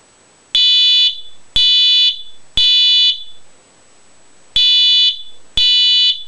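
Wheelock MT24-LSM fire alarm horn sounding the temporal code 3 pattern: three half-second blasts one second apart, a pause of about a second and a half, then two more blasts, each leaving a short echo.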